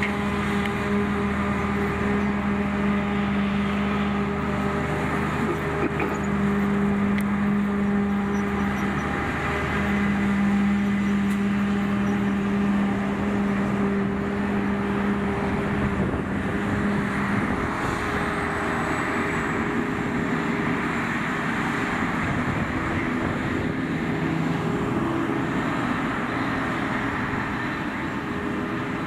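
Claas Jaguar 870 forage harvester and the tractor alongside it working a grass swath, a continuous machinery drone with a strong steady hum. The hum drops out briefly twice and fades about two-thirds of the way through, leaving a rougher rushing noise.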